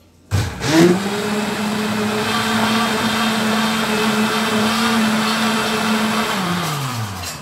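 Countertop blender blending a chocolate milkshake of milk, ice cream and grated chocolate. The motor starts with a rising whine just after the start, runs steadily, then winds down with a falling pitch near the end.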